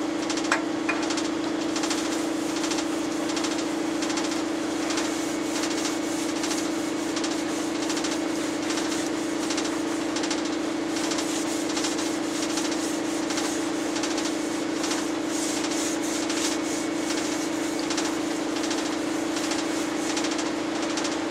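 A rag wet with WD-40 rubbed by hand along a metal lathe bed in repeated back-and-forth strokes, over a steady low hum.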